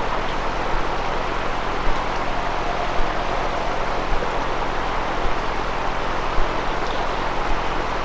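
Heavily amplified overnight field recording: a steady hiss with a low electrical-sounding hum underneath. A faint, drawn-out steady tone rises out of the hiss for a few seconds midway.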